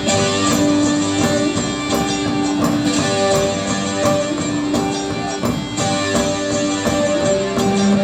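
Live rock band playing an instrumental passage: held, droning guitar notes over a steady beat of percussion hits about twice a second.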